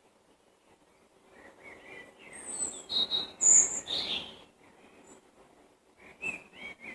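Songbird singing: a quick run of chirps and whistled notes that builds and peaks around the middle, then a shorter burst of song near the end.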